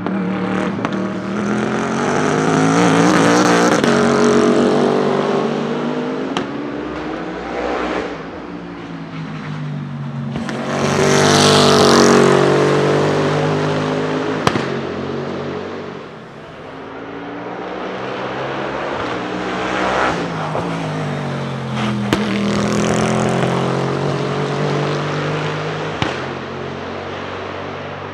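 Bentley Continental GT3 race cars' twin-turbo V8 engines on track, the engine note rising and falling with revs and gear changes. The sound swells loud three times as cars pass, with a few sharp cracks in between.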